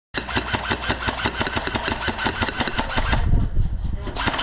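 Airsoft rifle firing a long full-auto burst, a rapid even rattle of shots, breaking off about three seconds in and starting again near the end.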